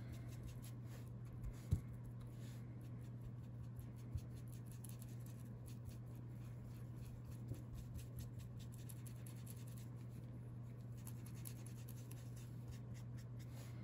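Ink blending tool's foam sponge dabbing and rubbing distress ink onto paper: faint repeated soft taps and scratchy rubs, with one sharper tap just under two seconds in. A steady low hum runs underneath.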